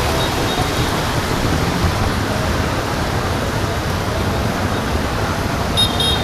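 Steady, dense hiss of heavy rain falling, with a brief high tone near the end.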